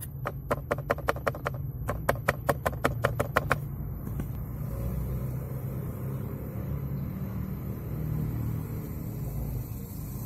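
Rapid clicking of plastic at the dashboard around the AC blower housing, about five clicks a second, pausing briefly near two seconds and stopping about three and a half seconds in. After that, only the car's steady low hum.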